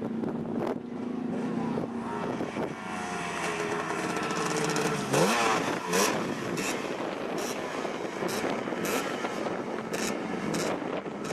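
Suzuki RG250 two-stroke twin engine running under way. Its pitch falls slowly, then rises sharply about five seconds in as it revs, with short sharp cracks through the second half.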